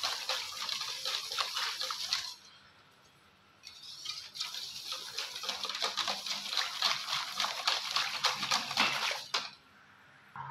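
Wire whisk sloshing rapidly through a thin mix of buttermilk and gram flour in a large steel pan, in two spells with a pause of about a second and a half between them.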